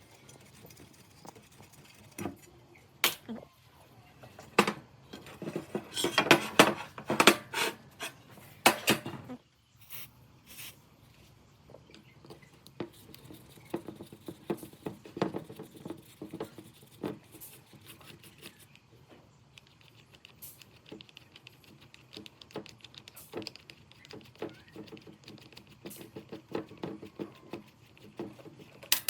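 Irregular clicks and knocks of small metal parts and hand tools being handled, with a dense run of sharp knocks about six to nine seconds in, then lighter scattered clicks and taps.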